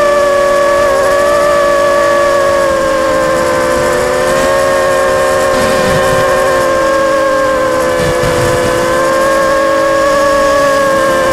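Electric motors and propellers of a small camera drone in flight, a steady multi-toned whine whose pitch wavers slightly as the throttle changes.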